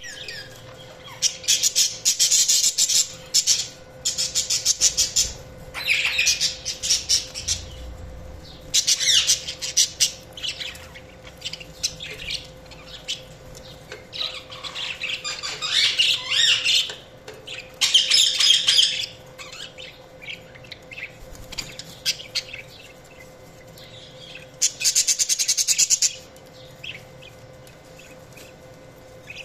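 Budgerigars chirping and chattering in bouts of rapid, high-pitched chirps and trills, each a second or two long, with short pauses between.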